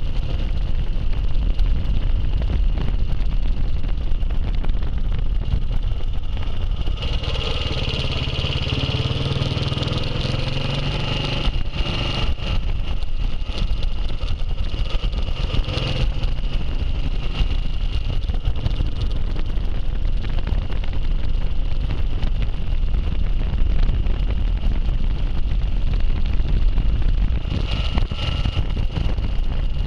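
Classic motorcycle's engine running on the move, a steady rumble. About seven seconds in, the engine note swells and its pitch glides for a few seconds before settling back.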